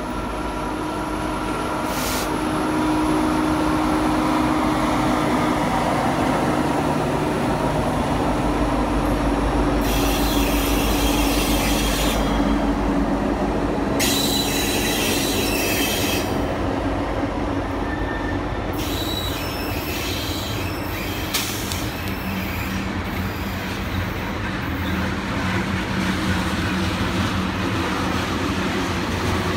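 Norfolk Southern freight train passing close by on a tight curve. The diesel locomotives' engines run loud as they come up and by, then the freight cars roll past, their steel wheels squealing against the rail at intervals.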